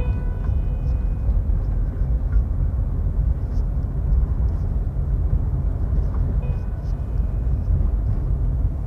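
Electric sewing machine running steadily as a seam is stitched, a continuous hum.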